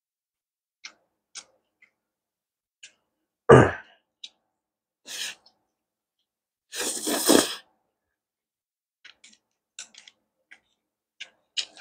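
Close-miked eating sounds: wooden chopsticks clicking on a metal plate, a sudden loud mouth sound about three and a half seconds in, then a long slurp of pad thai rice noodles around seven seconds in. Soft wet chewing clicks follow near the end.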